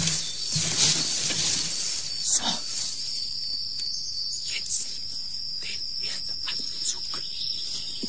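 Sound-effect ambience of a science-fiction radio play: a steady high-pitched hiss with a noisy wash beneath it, broken by scattered sharp clicks and crackles.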